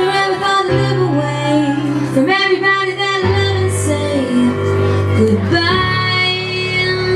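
Loud music over a nightclub sound system: a woman singing a gliding melody over held synth bass notes that change every couple of seconds.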